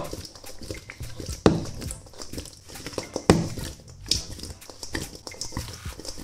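Parboiled potato chunks coated in oil and spices being shaken in a stainless steel bowl, tumbling and knocking against the metal and each other to rough up their edges. A rapid, uneven pattering of soft knocks, with two louder thuds about a second and a half in and just past three seconds in.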